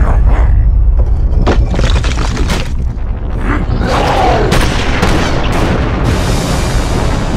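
Animated-cartoon action sound effects: a deep, continuous booming rumble with a run of sharp hits and crashes, under dramatic background music.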